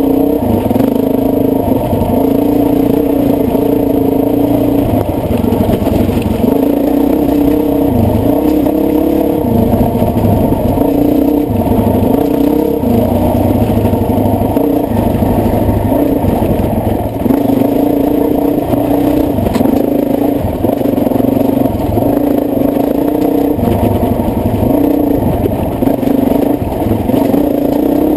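Dirt bike engine running under constantly changing throttle, its pitch climbing and dropping every second or two, muffled.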